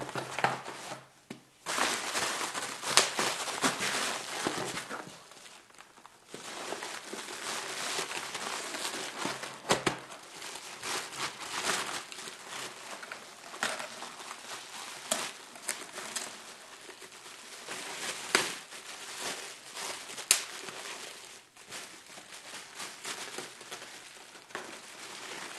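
Bubble wrap and plastic packaging crinkling and rustling as they are pulled off a wrapped book by hand, with many sharp crackles and a couple of short pauses.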